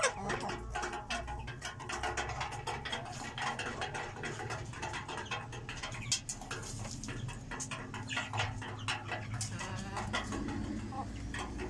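A flock of hens clucking softly while they peck feed from a metal trough, their beaks giving a fast, irregular patter of taps.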